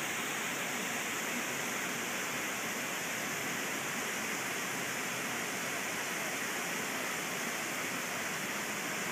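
Water pouring over a low river dam spillway: a steady, unbroken rush.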